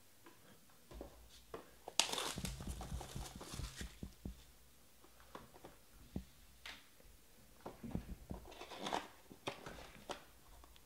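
A small cardboard box is handled and opened: rustling, scraping and light tapping of cardboard, densest for about two seconds starting about two seconds in, with more rustling near the end.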